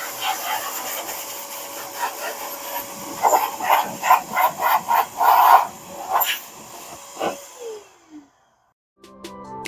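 Electric air blower blowing out the inside of an opened laptop: a steady hissing rush of air over a constant motor tone, with a run of short, louder blasts in the middle. About 7.5 s in the motor winds down with a falling whine and stops. Music starts near the end.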